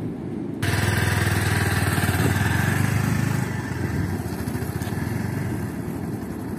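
Small motorcycle's engine running as the bike rides off. It comes in abruptly about half a second in and grows fainter over the last few seconds as it pulls away.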